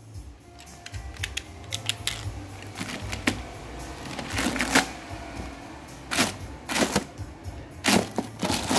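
Irregular sharp clicks and short crinkles of a clear plastic bag being handled and cut open with a utility knife.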